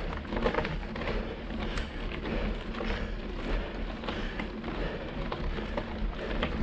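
Clatter and wind noise of a ride over a rough trail on two wheels: irregular knocks and rattles over a steady wind rumble on the microphone.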